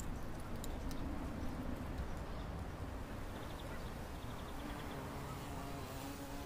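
Outdoor village ambience: a low steady rumble, and from about halfway in, short runs of rapid high-pitched ticking chirps.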